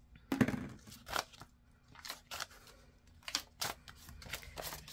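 Paper banknotes and a clear plastic binder sleeve rustling and crinkling as they are handled, in a series of short crackles, loudest about half a second in.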